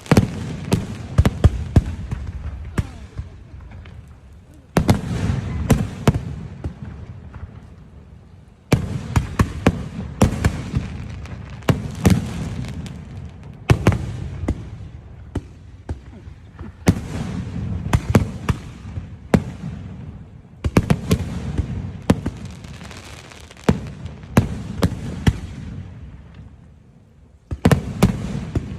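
Aerial fireworks display: volleys of shells bursting, each starting with a sudden loud bang followed by a string of sharp crackling bangs that die away, a new volley about every three to four seconds.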